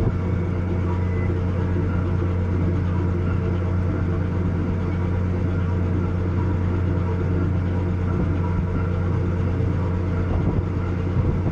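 Engines of the cargo-passenger ship Azeria Maru running under way, a steady low drone.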